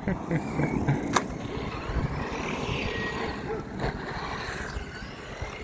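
RC truck's tyres rolling and rumbling over a skate track, with two sharp knocks, one about a second in and one near four seconds in.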